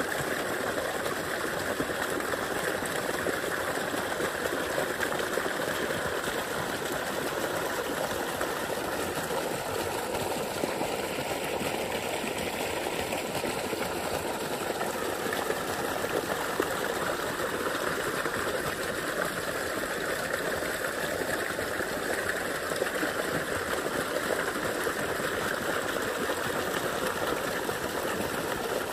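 Water gushing from a wide pipe outlet and splashing into a pool: a steady rush of water.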